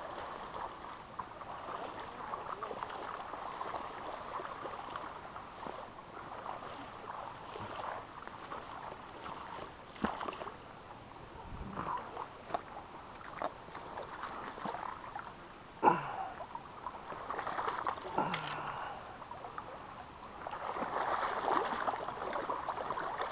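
River water running and gurgling over rapids, with a few sharp knocks or splashes; the loudest comes about two-thirds of the way in.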